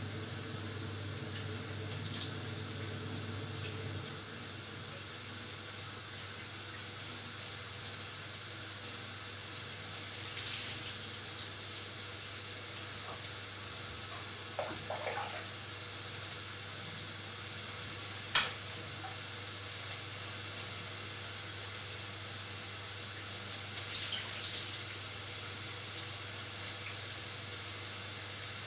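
Bulgur being washed by hand in a plastic basin of water: soft swishing and splashing over a steady background hiss. A low hum stops about four seconds in, and there is a single sharp click about two-thirds of the way through.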